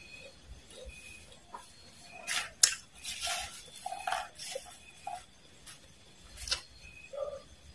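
Metal spoon clinking and scraping against a ceramic plate as it scoops into a pile of crisp fried worms and mole crickets: scattered clinks and short scrapes, the sharpest clink about two and a half seconds in and another near six and a half seconds.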